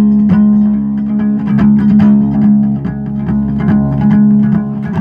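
Ukulele strummed in a steady rhythm, its chords ringing on between strokes.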